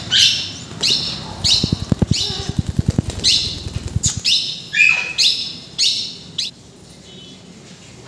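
Alexandrine parakeets screeching, a short harsh call about every half second, while a held parakeet flaps its wings in rapid beats from about one and a half to four seconds in. The calls stop about six and a half seconds in.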